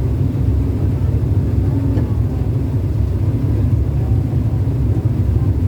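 Ship's engine running with a steady low rumble, heard on board a passenger vessel under way, with a faint steady hum above it.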